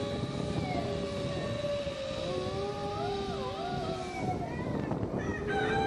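Siberian husky howling: long drawn-out howls whose pitch wavers and dips, breaking into shorter rising howl notes after about four seconds, over a low rumbling background.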